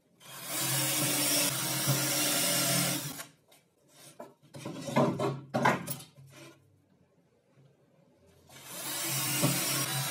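Cordless drill-driver running steadily for about three seconds, then a few seconds of wooden boards being knocked and shifted on the bench, then the drill running again near the end, driving a screw into laminated particleboard.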